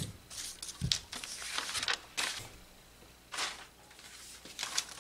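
Paper pattern pieces and rayon fabric rustling as they are handled and moved on a cutting table, in several short bursts, with a soft thump about a second in.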